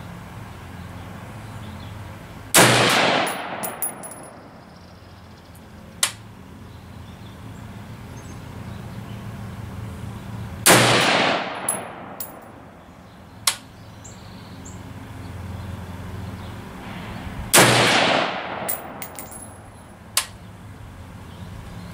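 DPMS Oracle AR-15 rifle firing .223/5.56 rounds from a bench rest: three single shots, seven to eight seconds apart, each ringing off over about a second. Each shot is followed by a few fainter, sharp clicks. These are fouling shots to dirty the barrel before an ammunition test.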